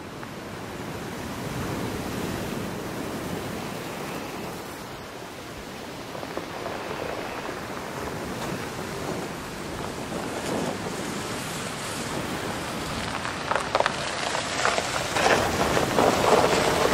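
Wind rushing over the microphone, growing louder, with a dense crackling rustle in the last few seconds.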